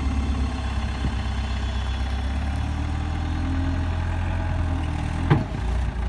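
2004 Cat 257 rubber-track skid steer loader's diesel engine running steadily as the loader drives forward. A brief sharp sound stands out about five seconds in.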